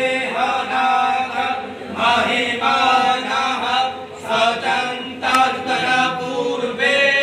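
Vedic Sanskrit mantras chanted by men's voices, in long held phrases with short breaks between them.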